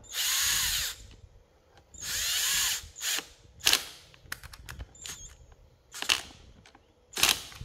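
Power driver run in two bursts of about a second each, spinning nuts down onto studs during chainsaw reassembly, followed by three sharp clicks.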